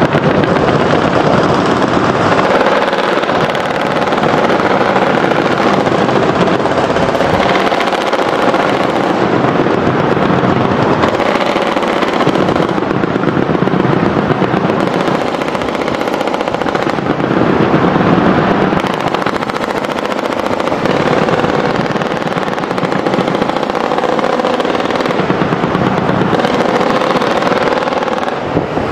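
Sustained rapid automatic gunfire, a dense continuous rattle of shots without a break.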